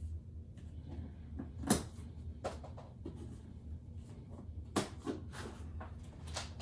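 Plastic packing straps on a cardboard box being cut and pulled off, giving a handful of sharp snaps and clicks, the loudest about two seconds and five seconds in, with light handling of the box between them.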